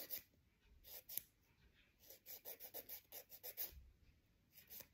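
Faint scratching of a hand-held nail file worked back and forth across a fingernail's tip, shaping the nail. The strokes come in short bursts with pauses between, the longest a quick run of about five strokes a second.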